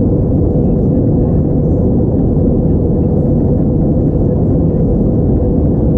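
Steady cabin noise inside an Airbus A321-231 in flight: a low, even rush from its IAE V2500 turbofan engines and airflow, with a constant hum running through it.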